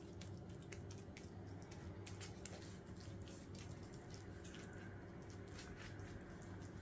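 Wooden spoon spreading and dabbing minced-meat filling over a lavash on a plate, a run of small irregular clicks over a low steady hum.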